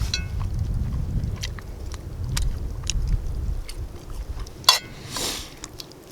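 Close-up chewing and biting of food, with wind rumbling on the microphone for the first few seconds. Small clicks throughout and a sharp click near the end.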